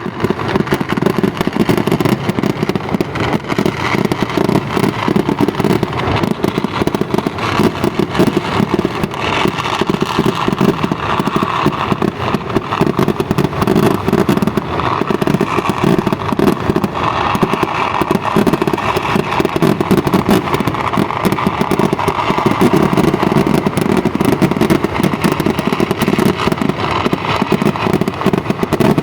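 Firecrackers going off in a dense, unbroken rattle of rapid pops that does not let up.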